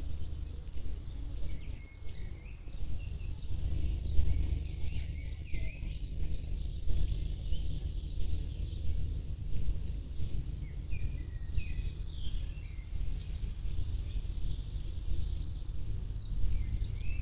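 Birds chirping and singing in short scattered phrases, over a steady low rumble.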